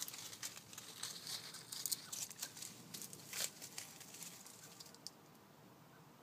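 A hedgehog rustling and scratching through dry leaves and garden undergrowth: an irregular crackling that stops about five seconds in.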